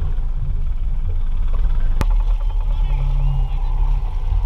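Rigid inflatable boat's outboard motor running under way, with a heavy low rumble of wind and water on the microphone. A single sharp click comes about two seconds in.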